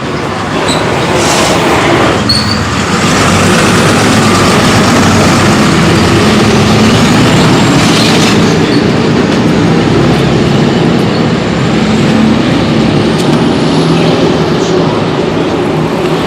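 A large road vehicle's engine running close by: a loud, steady rumble with a low hum, and a faint high whine rising through the middle.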